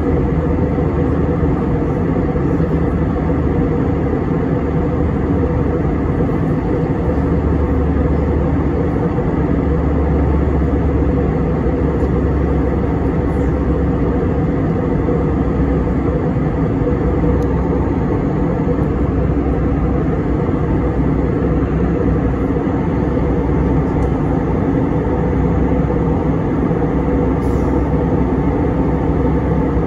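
Steady cabin drone of an Airbus A321 in cruise: engine and airflow noise heard from inside the passenger cabin, strongest low down and unchanging.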